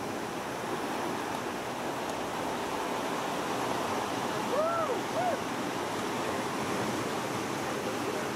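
Ocean surf washing steadily onto the beach, with two brief rising-and-falling calls a little past the middle.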